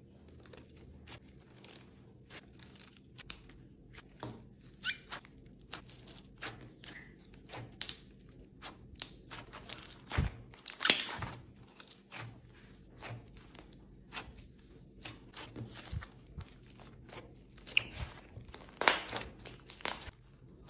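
Hands squeezing and kneading slime with clay mixed in: irregular sticky crackles and squeaks, with a few louder pops around five, ten and nineteen seconds in.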